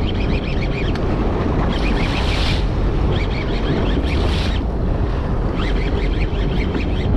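Conventional fishing reel being cranked in spurts, a rapid ticking from its gears, with two short bursts of hiss between the spurts. Under it is a steady low rumble of wind on the microphone and the boat on open sea.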